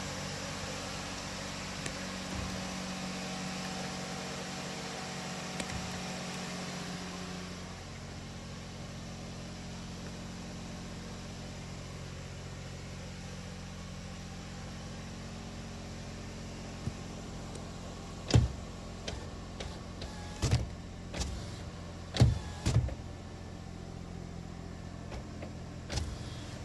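Car power window motor running for about the first seven and a half seconds over a steady low hum, then stopping. Several sharp clicks follow in the last third.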